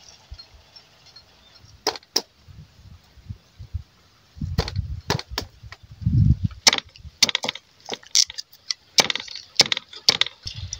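A cleaver chopping garlic and lemongrass on a round wooden log chopping block: sharp knocks of the blade on the wood, two at first, then a quicker, irregular run of chops with some dull thuds from about halfway.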